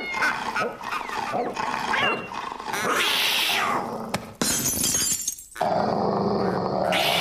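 Cartoon sound effects of an animated cat growling and yowling as it pounces, with a crash-like noisy burst a little after four seconds.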